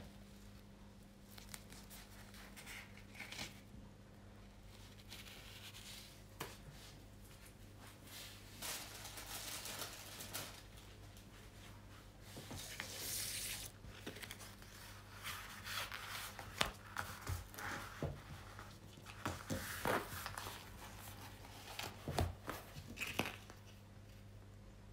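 Plastic packaging of a diamond-painting kit being handled: scattered rustling, crinkling and tearing in short bursts with brief pauses, busiest in the second half. A steady low electrical hum runs underneath.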